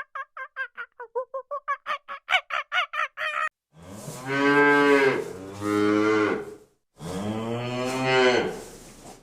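A rapid run of duck quacks, about six a second, for the first few seconds. Then a cow moos three times in long, deep calls.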